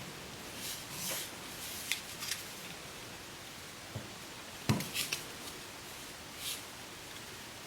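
Handling noises of a small object: scattered light clicks, taps and rustles over a steady faint hiss, with one sharper knock a little past the middle.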